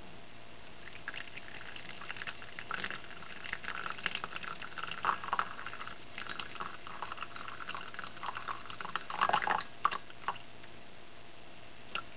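Broth pouring from the spout of a grease separator cup into a glass mug: an uneven trickling and splashing stream, louder in spells and strongest just before it stops about ten seconds in. A single light tap near the end.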